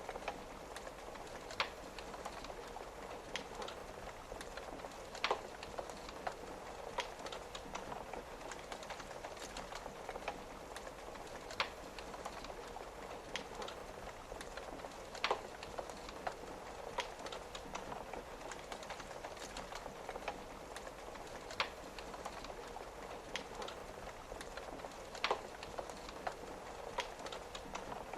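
Wood fire crackling with irregular sharp pops every second or two, over a steady patter of rain on a window pane.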